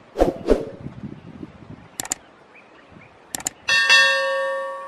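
YouTube subscribe-button animation sound effect: two brief pops near the start, a pair of mouse clicks about two seconds in and another pair a second and a half later, then a notification bell ding that rings on and slowly fades.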